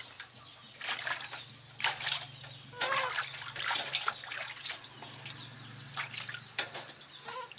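Water in a steel basin sloshing and splashing in short irregular bursts as hands wash baby monkeys in it.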